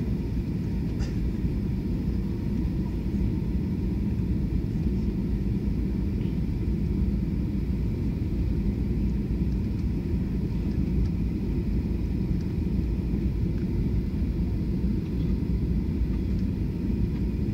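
Cabin noise of a Boeing 737-400 airliner on final approach with flaps extended: a steady low rumble of its CFM56 engines and airflow, with a faint steady whine above it.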